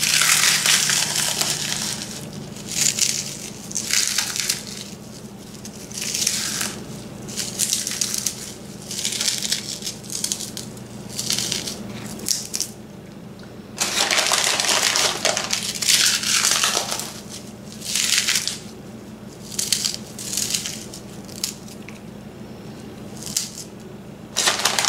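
Fried pork rinds crunching and crackling as bare hands crush them into a bowl of raw ground beef, in irregular bursts of about a second each, with one longer stretch of crunching a little past halfway.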